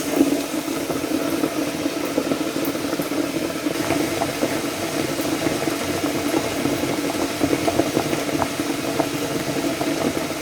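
Water boiling in a pot: a steady bubbling with many small pops, as a compressed wooden block is boiled to swell back level.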